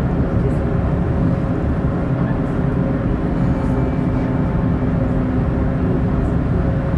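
Steady engine and road drone heard from inside a moving road vehicle's cabin, with a faint steady hum over it.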